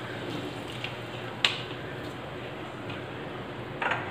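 Chicken sauce simmering in an aluminium pan on an induction cooktop, a steady low sizzle just after a little water has been added. A sharp click comes about one and a half seconds in, and a short knock near the end.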